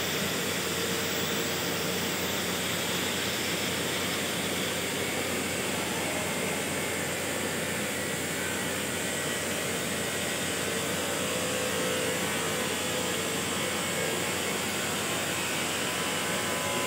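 Electric arc welding on a steel pipe-to-flange joint: a steady, even hiss that runs without a break.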